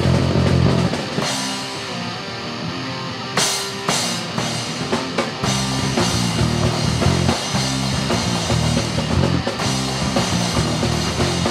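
Rock music with guitar and drums. About a second in the low end drops away for a short break, then drum hits bring the full band back in.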